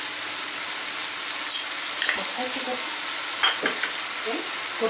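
Water at a rolling boil in an aluminium pot on a gas stove: a steady bubbling hiss, with a few faint clicks and taps about one and a half and three and a half seconds in.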